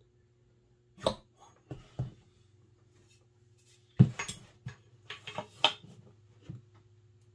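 Small metal air-rifle parts and hand tools clinking and knocking on a workbench: a few separate clicks, a sharp knock about four seconds in that is the loudest, then a quick cluster of clinks. A faint steady hum lies underneath.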